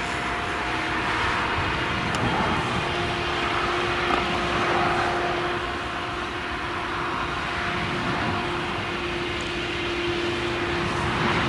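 Claas Jaguar 970 forage harvester chopping sorghum and blowing it into a trailer, with the tractor pulling the trailer running alongside. A steady machine drone carries a couple of held whining tones, and a lower one joins about three seconds in.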